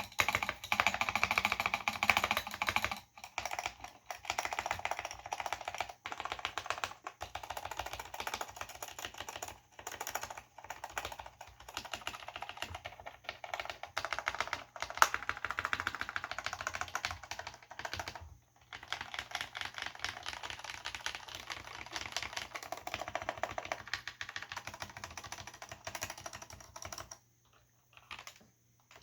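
Fast typing on a Cherry G80-0499 keyboard with linear Cherry MX Black switches and ABS doubleshot keycaps: a dense, continuous run of keystrokes that stops near the end, leaving a few scattered key taps.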